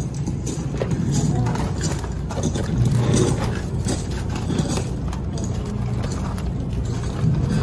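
Footsteps of soldiers' military boots on gravel, played as the sound installation of a museum entrance passage: a steady run of tramping steps over a low rumble.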